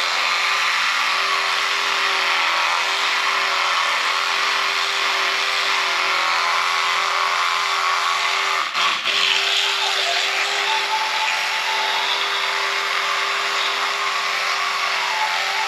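Oral-B Smart 5000 electric toothbrush running with a steady hum over a scrubbing hiss, with a brief break about nine seconds in.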